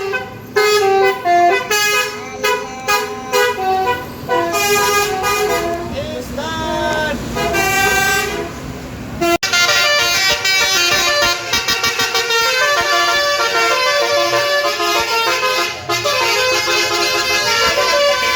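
A bus's basuri telolet horns, a roof-mounted bank of trumpet air horns, playing a quick tune of short notes. About nine seconds in, the sound breaks off abruptly into a denser, louder chord of several horns that keeps changing notes rapidly.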